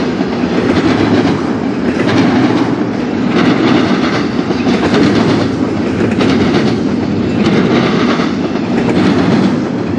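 Norfolk Southern intermodal train's double-stack container cars rolling past, a loud steady rumble of steel wheels on rail with a clickety-clack that recurs about once a second.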